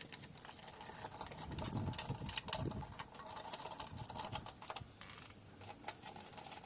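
Light clicks and knocks of a small engine's flywheel cover being fitted and its screws put in by hand, with some handling rumble about two seconds in.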